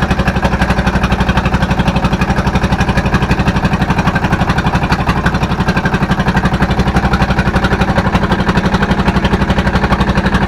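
Fishing boat's engine running steadily with a fast, even chugging beat.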